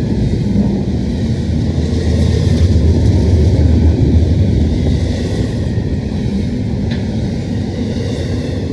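Freight train passing with a steady low rumble, a little louder in the middle.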